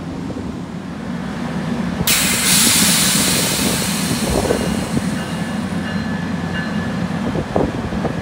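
Standing NJ Transit commuter train with a steady low hum. About two seconds in, a hiss of compressed air starts suddenly and slowly fades away, the sound of the train's air brakes venting.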